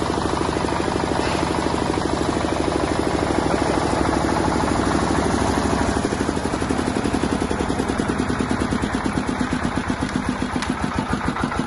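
Diesel generator set engine running steadily. About halfway through its beat turns into a distinct, regular pulsing of separate firing strokes, as if the engine is slowing.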